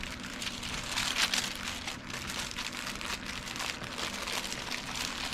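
Wax paper crinkling and rustling as it is folded and layered by hand around a saw blade, in irregular crackles that peak about a second in.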